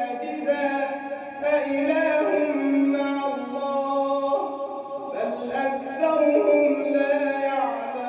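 A man reciting the Quran, verses of Surat an-Naml, in a slow melodic tajweed chant, holding long notes with short pauses between phrases.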